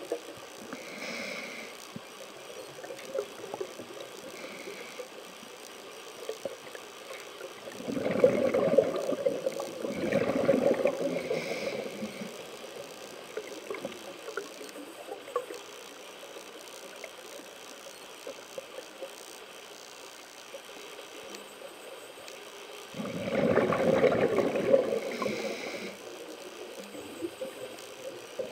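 A scuba diver breathing through a regulator underwater: brief hissing inhalations and longer bubbling exhalations, twice in quick succession about a third of the way in and once more near the end.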